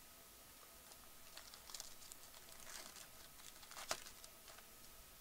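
Faint crinkling and tearing of a 2015 Bowman Draft Picks & Prospects foil pack wrapper being ripped open, with one sharper crackle about four seconds in.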